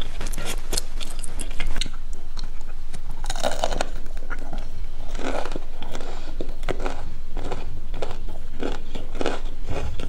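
Close-up eating sounds of crispy fried food (twigim): a quick run of sharp crunches in the first two seconds, then steady chewing at about two strokes a second.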